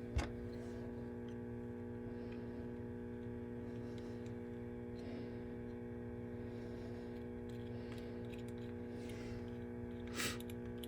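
Steady electrical hum, with a couple of faint clicks of handling, one just after the start and one near the end.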